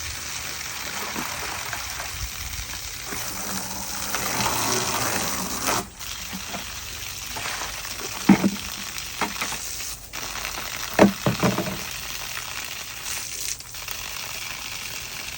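Water running out of a hose onto the yard with a steady hiss, flushing fresh water through the tankless water heater's heat exchanger to rinse out loosened scale. A few sharp knocks come a little past halfway and again about two-thirds of the way in.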